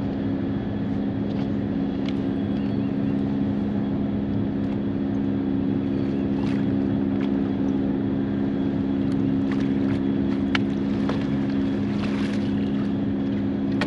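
A boat's motor running with a steady, even hum, with scattered light clicks and knocks on top.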